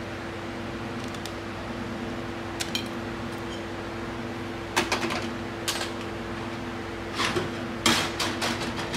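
Metal parts of a ZF 8HP automatic transmission's clutch pack clinking and clattering as they are handled and lifted out of the housing. The sharp clicks start about halfway through, in a few short clusters, over a steady hum.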